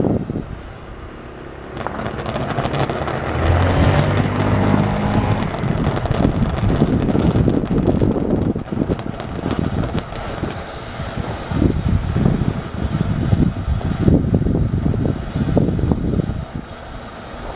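TNT Galactic Revolt firework fountain burning: a steady rushing hiss of sparks with dense crackling. It dips briefly just after the start, then picks up again about two seconds in.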